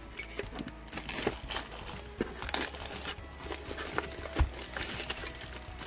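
Clear plastic wrap crinkling and crackling as it is pulled and peeled by hand off a small plastic machine, with one sharp knock a little over four seconds in.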